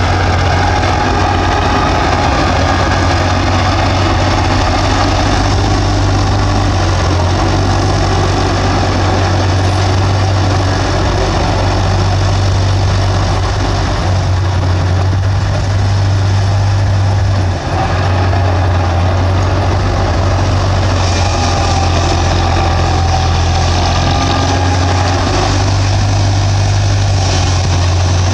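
Bulldozer's diesel engine running steadily with a loud, deep drone, with one brief dip in level about two-thirds of the way through.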